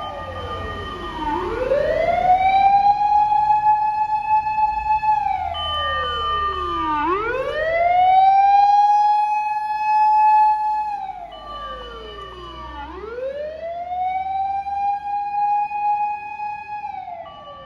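Japanese fire engine siren wailing in slow cycles: the tone drops, swings back up and holds for about four seconds, three times over, with a second siren's steady tones in between, signalling fire apparatus on an emergency run. The sirens grow fainter about two-thirds of the way through and again near the end.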